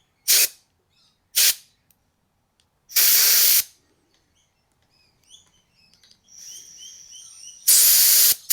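Compressed air from a blow gun hissing in four short blasts into the blocked oil passages of a chainsaw's bar-oiler housing. The first two are brief, the third lasts about half a second, and the last, near the end, is longer. Faint high chirps come in between the third and fourth blasts.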